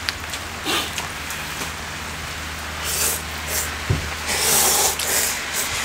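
Steady rain falling, an even patter, with two short louder rushes of noise about three and four and a half seconds in.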